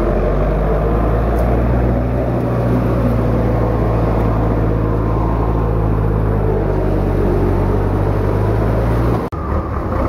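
Off-road vehicle's engine running at steady revs, a low steady drone that breaks off sharply for a moment about nine seconds in.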